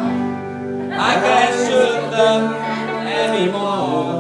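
Live amateur music in a room: sustained strummed guitar chords, with a voice singing over them from about a second in.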